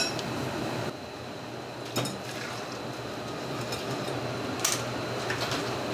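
Metal ladle clinking against a ceramic bowl and a wire-mesh strainer, with liquid pouring through the strainer, over a steady kitchen background noise. Sharp clinks come about two seconds in and again past the middle.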